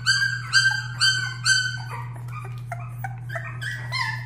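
Young puppies crying in high-pitched squeals, about two a second for the first two seconds, then softer and more broken squeaks and whimpers.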